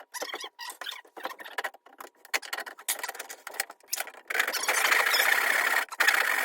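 Wood being worked on an axe handle while its wedge kerf is cut deeper: irregular scratchy scraping and rubbing at first, then about four seconds in a steady, harsh sawing rasp with one brief break.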